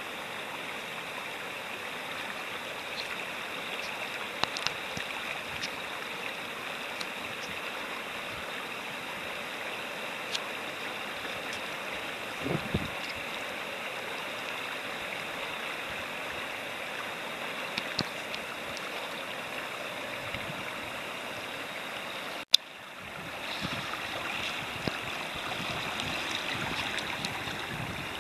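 Shallow river rapids rushing steadily, with a few faint clicks. A sharp click about three-quarters of the way through, after which the water noise is a little louder and less even.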